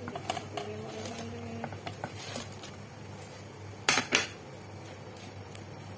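Cooking spoon clinking and scraping against the pot as fried pakoras are added to kadhi. There are scattered light clinks, with a sharp double clink about four seconds in.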